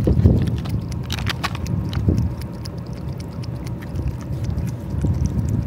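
A cat eating wet food from a metal bowl close to the microphone, with short wet chewing clicks that cluster about a second in, over a low wind rumble on the microphone.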